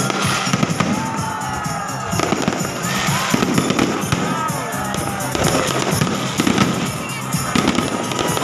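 Fireworks display: aerial shells bursting and crackling in a dense, continuous run of sharp pops.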